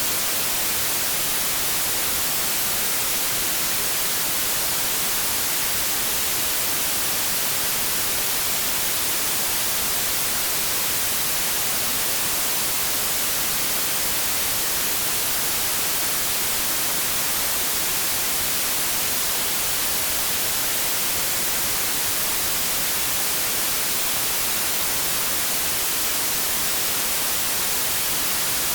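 White-noise static: a steady, even hiss, strongest in the high pitches.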